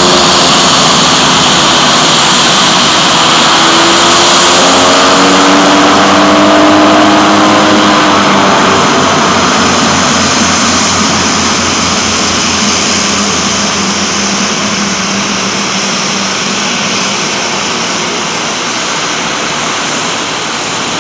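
Twin turboprop engines of a DHC-6 Twin Otter running loudly as it taxis: a turbine whine and propeller roar, with tones wavering in pitch for the first several seconds, then a steady drone that slowly fades.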